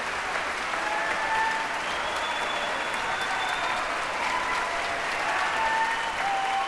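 Concert-hall audience giving a standing ovation: steady applause with scattered cheering voices over it.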